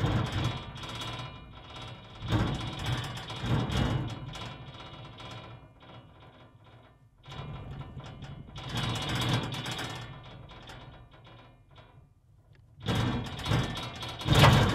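Field recording of an iron street manhole cover clanking and rattling in its frame. It comes in irregular bursts a second or two long with quieter gaps between, and the loudest burst is near the end.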